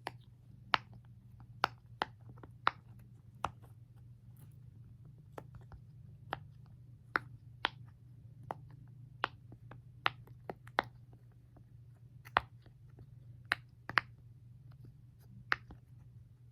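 Bubbles of a silicone pop-it fidget toy being pressed through one at a time: sharp, irregularly spaced pops, a little more than one a second.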